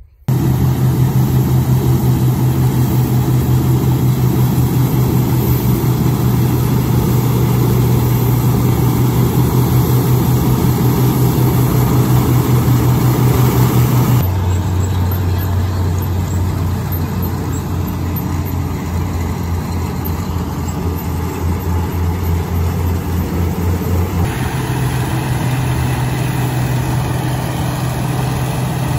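International Harvester 403 combine's C263 gas engine running steadily with a strong, even hum. The pitch of the hum drops abruptly about 14 seconds in and rises again about 24 seconds in.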